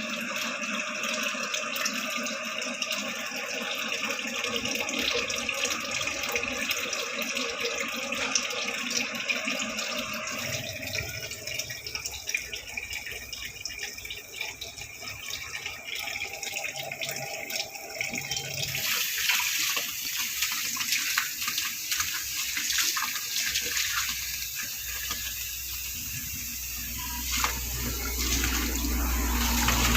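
Water running from a sink tap and splashing into the basin, its sound changing twice along the way.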